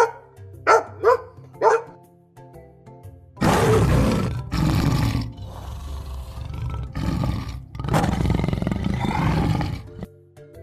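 A dog barks four quick times, then a lion roars in several long, rough bouts over soft background music.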